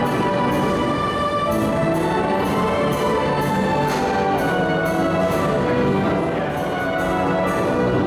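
Carousel band organ playing a brassy, orchestra-like tune with a steady beat.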